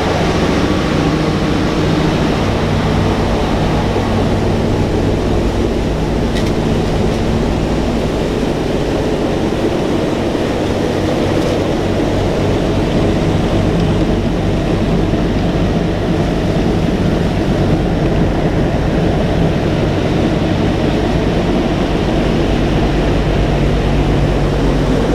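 Four Wright R-1820 Cyclone nine-cylinder radial engines of a B-17 bomber in flight, a steady drone with several low tones heard from inside the bare metal fuselage.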